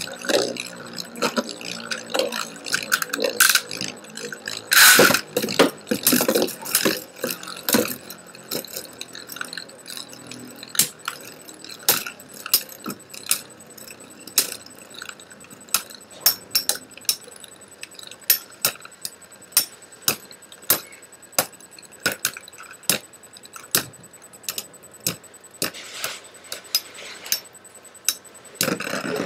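Spinning metal Beyblade tops clacking against each other and the plastic stadium: a dense flurry of sharp metallic clicks at first, then single clicks at a bit more than one a second.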